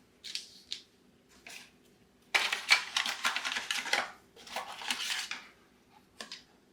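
Doorbell mounting hardware (small screws, wire extenders and plastic mounts) being handled, rattling and clicking against each other and their packaging. There are a few light clicks, then a dense stretch of rattling about two and a half seconds in, more around five seconds, and a couple of clicks near the end.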